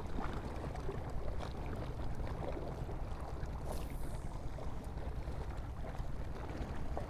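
A steady low outdoor rumble, with a brief high whoosh about four seconds in as a spinning rod is cast and line runs off the reel.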